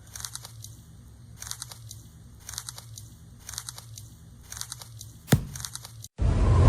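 Sound-effect clips standing in for the opening's music: short clusters of crackly clicks repeating about once a second over a low steady hum. About five seconds in comes one sharp hit with a falling tail, then after a moment's silence a loud rushing noise begins near the end.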